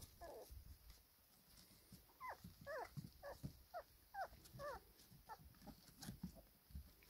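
Four-week-old black Labrador puppies whimpering faintly: a quick string of about eight short, high whines, each sliding down in pitch, between about two and five seconds in.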